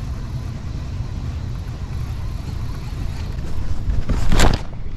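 Steady low wind rumble on the microphone over open water. About four seconds in comes a brief, loud rush of noise.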